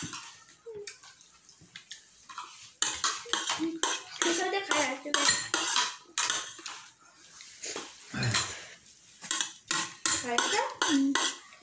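Spoon clinking and scraping against a plate while someone eats, in many short quick strokes. Sparse at first, then busy and almost continuous from about three seconds in.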